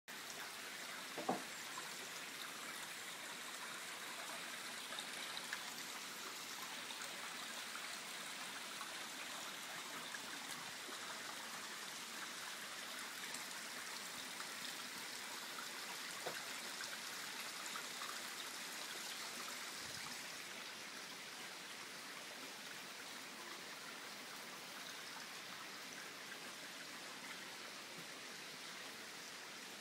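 Steady hiss of water noise, a little quieter after about twenty seconds, with a couple of faint clicks.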